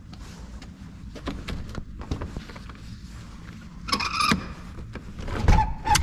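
A glass patio door being unlocked and opened: clicks and rattles from the lever handle and deadbolt, a short squeak about four seconds in, and a thump near the end as the door comes open.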